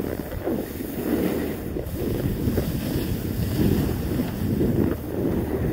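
Wind buffeting the phone's microphone in an uneven low rumble while the person filming moves downhill on the snow.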